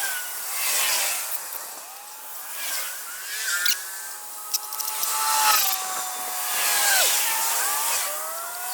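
Chainsaw running and cutting into wood, its engine pitch sagging and climbing again and again as the chain bites and frees, with repeated swells of cutting noise.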